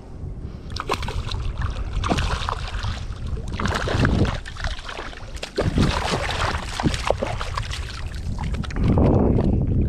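Wind noise on the microphone, with sharp splashes from a hooked speckled trout thrashing at the surface as it is played in. It grows louder near the end as the fish is grabbed by hand.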